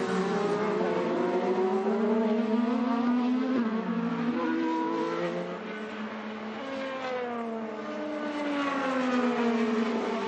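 IndyCar racing engine at full song, its pitch climbing and falling again and again as the car accelerates, brakes and changes gear; it drops back a little past the middle, then climbs again.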